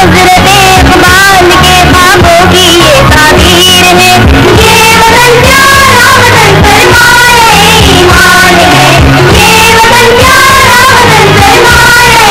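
Music with a high singing voice, a woman's by its pitch, carrying a wavering, ornamented melody over a steady repeating bass line, in the style of a South Asian film song.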